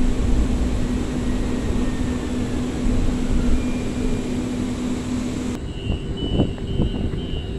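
Siemens S200 LRV4 light-rail car running, heard from inside: a steady hum over the rumble of the ride. About five and a half seconds in the sound cuts to outside, where a high beep repeats about two to three times a second.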